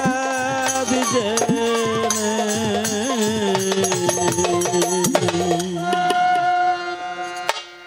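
Folk band playing a short musical passage: a melody of held notes over drum strokes. The drums stop about five and a half seconds in, and the held notes break off suddenly near the end.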